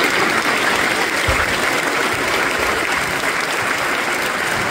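An audience applauding: many people clapping steadily in a hall.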